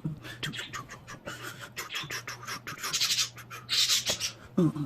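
Tarot cards being shuffled: a quick run of crisp clicks, then two short hissing swishes about three and four seconds in.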